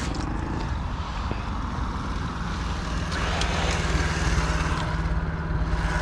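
An engine running steadily at idle, a low continuous drone whose hum grows steadier about two seconds in.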